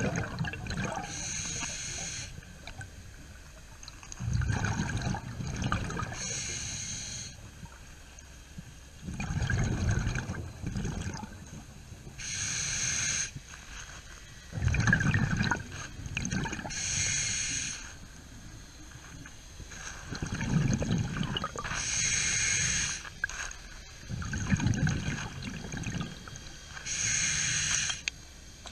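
Scuba diver breathing through a regulator underwater. Each breath in is a short hiss and each breath out is a low bubbling rumble of exhaust bubbles, about one breath every five seconds.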